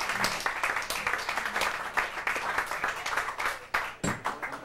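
Audience clapping at the end of a song, thinning out to a few scattered claps near the end.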